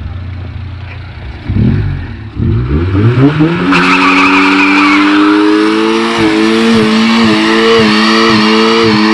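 Front-wheel-drive Honda Civic sedan idling, blipped twice, then revved up and held at high revs against the rev limiter with brief regular dips. From about four seconds in, its spinning front tyres squeal loudly on concrete in a burnout.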